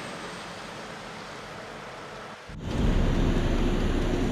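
A steady, noisy outdoor hiss. About two and a half seconds in, an abrupt cut brings in a much louder, deep rumble of a heavy vehicle engine running.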